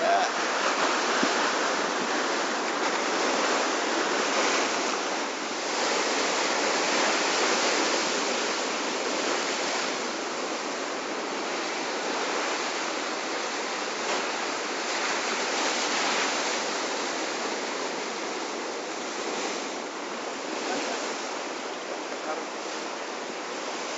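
Heavy surf breaking and washing over a rocky shore: a steady rush of water noise that grows slowly quieter toward the end.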